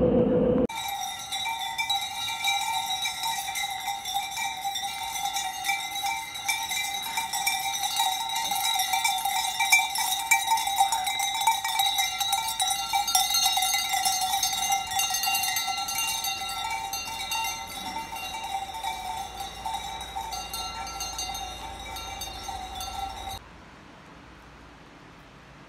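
Many cowbells on a small herd of walking cows clanking and ringing together in a continuous jangle. The bells cut off suddenly near the end, leaving a faint steady hiss.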